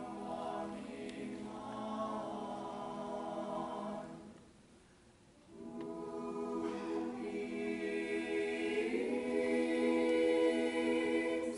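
Mixed-voice vocal jazz ensemble singing a cappella in held chords: two phrases with a short breath between them about four seconds in. The second phrase shifts chord and swells louder before cutting off at the end.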